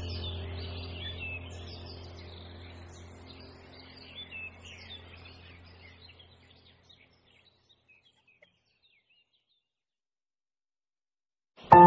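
Background music with a low steady drone and birds chirping, all fading out together over about seven seconds into silence. Near the end a new ambient music track with sustained ringing tones starts loudly.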